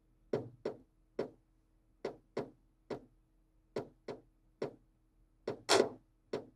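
Simple drum pattern from FL Studio's step sequencer playing through the Surface Pro 3's built-in speakers: three sharp percussive hits per bar, repeating about every 1.7 s, with the second hit of the last bar the loudest.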